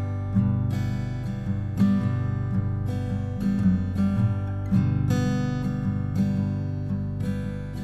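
Background music: gentle, peaceful acoustic guitar, strummed in a steady rhythm.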